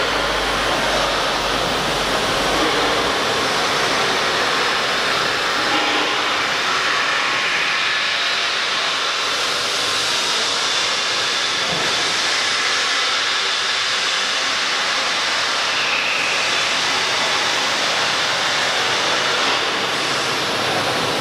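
A CNC wood router's machinery running with a steady, loud hiss and a faint whine, with no cutting strokes or impacts.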